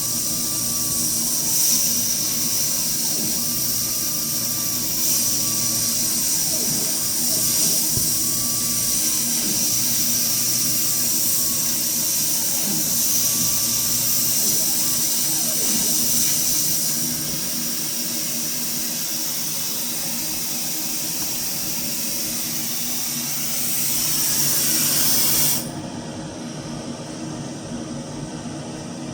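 Avid CNC router's stepper motors whining in short rising-and-falling arcs as the gantry moves a laser head through a cut, over a steady hiss from a blower. The hiss cuts off suddenly near the end, leaving a lower hum.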